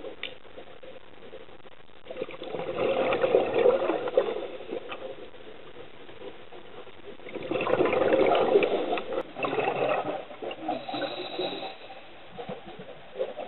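Scuba diver's exhaled bubbles gurgling out of a regulator, heard underwater through the camera housing: two long bursts about five seconds apart, with a quieter steady hiss between breaths.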